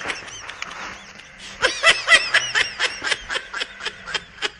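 A person laughing in quick repeated bursts, a few a second, starting about one and a half seconds in.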